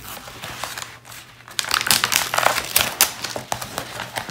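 Plastic protective film on a diamond painting canvas crinkling as hands handle and unroll the canvas, a run of quick crackles that grows louder about a second and a half in.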